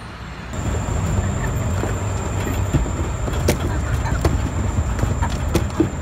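Engine of a poultry transport truck loaded with crated chickens running close by, a steady low rumble that starts suddenly about half a second in. Over it come scattered sharp knocks and rattles from the truck's metal crates.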